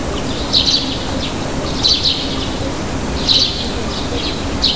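Small birds chirping in short clusters of high chirps, about every second and a half, over a steady background hiss.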